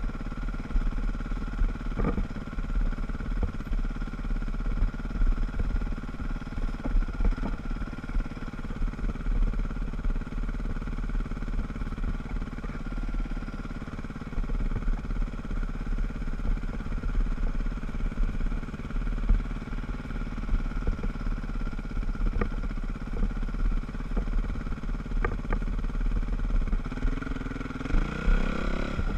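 Dirt bike engine running steadily at low speed, heard close from a helmet-mounted camera, with a heavy low rumble and a few knocks from the bumpy track. Near the end the engine revs up in a rising whine.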